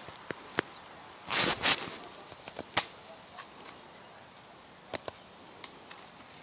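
Tall grass rustling against the camera in two loud swishes about one and a half seconds in, with scattered light ticks of stems and footsteps. Under it runs a faint, steady chirring of insects in the field.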